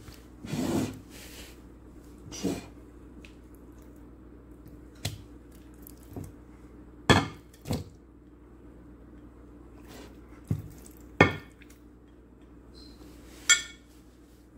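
Set fruit pudding being scraped off a plate into a ceramic bowl with a silicone spatula: a scattering of sharp knocks and clinks as the spatula and plate strike the bowl's rim, with soft scraping between them.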